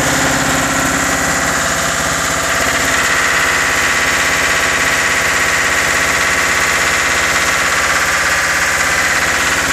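Lister stationary diesel generator set running steadily at constant speed, an even, loud pulsing beat with vibration.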